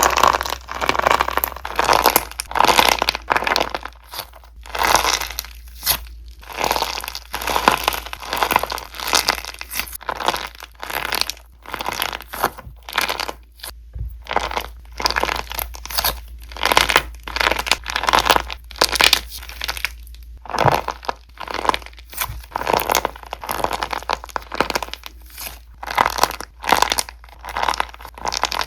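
Crunchy slime squishy toys squeezed and kneaded by hand, giving repeated crackling, crinkling crunches in irregular bursts with short pauses between.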